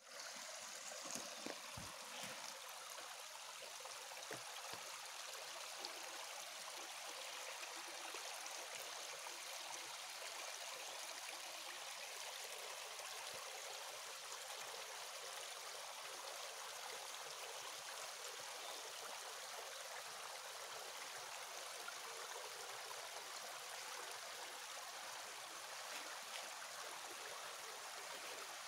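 Small stream of water running over stones, a steady, even rush. A few faint knocks come in the first few seconds.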